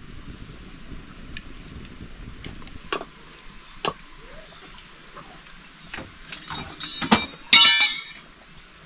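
Metal pots and utensils knocking and clinking, a few separate knocks and then a louder ringing metal clatter near the end.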